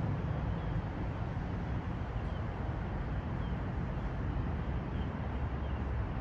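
Steady outdoor city ambience: a constant low rumble of distant traffic under a faint even hiss, with no distinct events.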